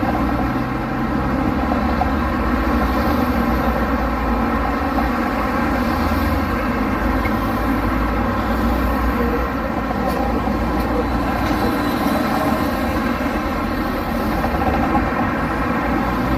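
Street traffic with the steady, continuous din of car engines.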